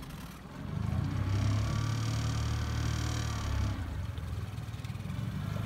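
Boat's outboard motor running with a steady low hum that grows louder about a second in, with a thin high whine over it for a couple of seconds.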